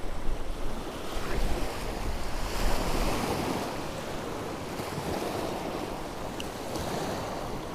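Strong, gusty wind rushing and rumbling on the microphone over choppy water, swelling louder about three seconds in.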